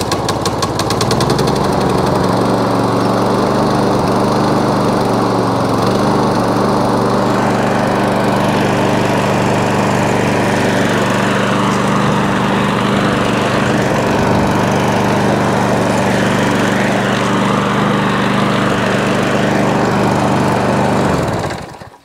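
Masport 18-inch rotary lawn mower engine running steadily just after catching on a new ignition coil, sounding a bit knocky, which the owner puts down to the mower's blades knocking about underneath rather than the engine. It cuts out shortly before the end.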